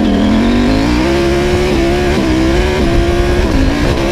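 KTM adventure motorcycle's engine pulling away, its note rising and then holding fairly steady at speed with a few brief dips, over wind and road rush.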